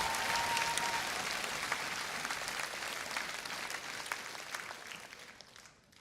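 Large audience applauding, a dense patter of many hands clapping that fades steadily away to near silence by the end.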